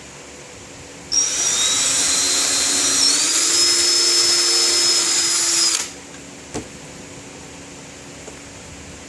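Power drill boring a pilot hole: it runs for about five seconds with a high whine that steps up in pitch partway through, then stops, followed by a single click.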